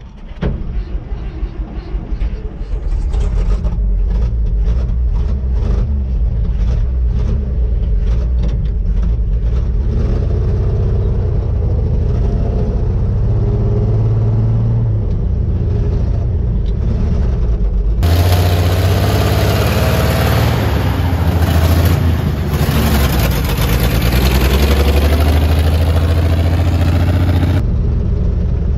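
1956 Chevrolet truck's 235 inline six-cylinder engine running while the truck is driven, heard from inside the cab as a steady low rumble. About two-thirds of the way through, a louder rushing hiss joins for about ten seconds and then cuts off suddenly.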